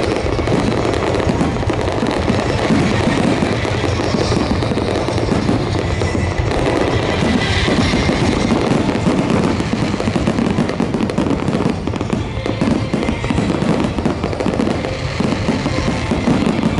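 Aerial firework shells bursting in a dense, continuous barrage, the bangs overlapping with crackle and no pause between them.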